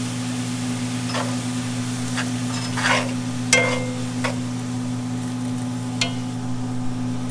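Metal tongs stirring beer and sauerkraut in a hot cast iron skillet, clinking against the pan about six times, over a faint sizzle of the simmering liquid. A steady low hum runs underneath.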